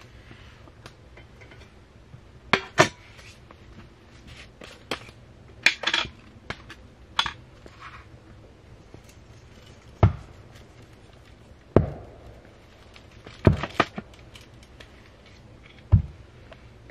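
Scattered clinks and knocks of objects being handled, with heavier thuds roughly every two seconds in the second half.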